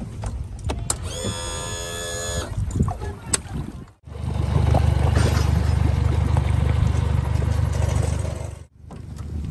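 An outboard motor's electric power tilt/trim unit whines steadily for about a second and a half. After a break comes a loud, steady low rumble lasting several seconds.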